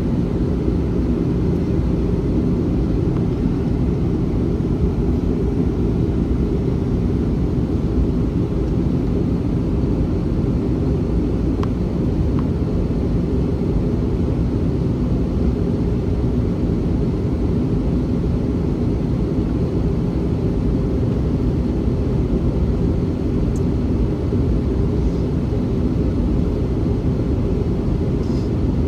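Steady, loud cabin roar of an Airbus A321-211 in flight: airflow and the CFM56 turbofan engines, heavy in the low end, with a faint steady hum.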